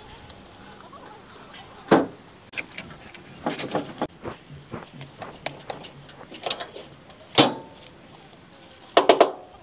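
Scattered sharp knocks and short rattles as the rusted body and steering of an abandoned jeep are handled. The loudest knocks come about two seconds in, past seven seconds, and in a quick run of several near the end.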